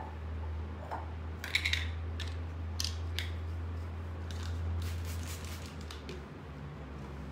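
Short clicks and scratchy rustles of paint bottles and supplies being handled and picked up from the floor, over a steady low hum that stops about six seconds in.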